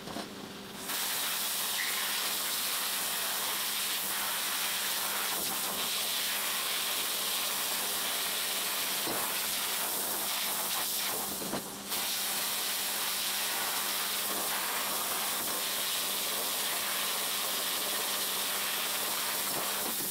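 Abrasive blast cabinet in use: compressed air and grit hissing steadily from the blast gun. It starts about a second in and breaks off briefly a little past halfway, when the trigger is let go, then carries on.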